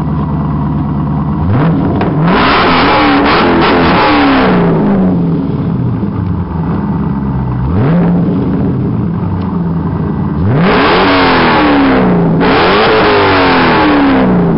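Corvette Z06 V8 exhaust idling, then revved several times: the pitch climbs about a second and a half in and falls back, rises again near the middle, and is run up twice more near the end.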